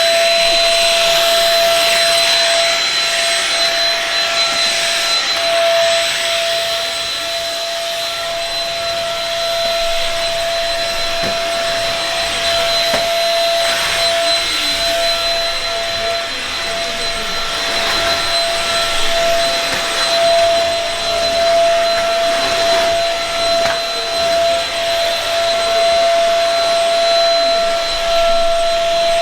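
Vacuum cleaner running steadily with a high motor whine, its level wavering a little.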